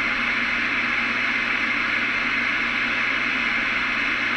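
Radio receiver hiss between transmissions: steady static from an open channel, with a faint low hum under it.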